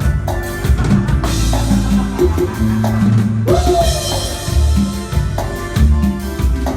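Loud Latin dance music with a drum beat and bass, played through a sound system during a sound check.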